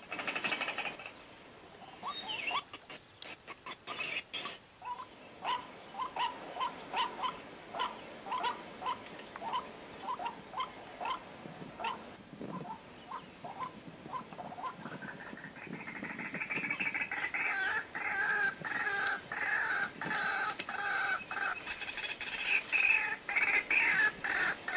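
White-breasted waterhen calling: short repeated notes about two a second, then a faster, louder run of calls from about halfway through.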